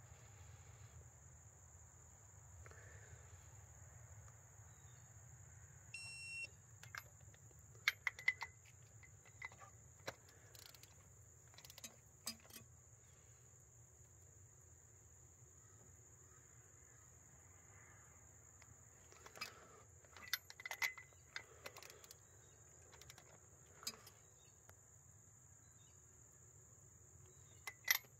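Digital torque wrench tightening knock sensors to 15 foot-pounds: one short electronic beep about six seconds in and scattered sharp clicks of the wrench and sockets. Under it is a faint steady high-pitched whine.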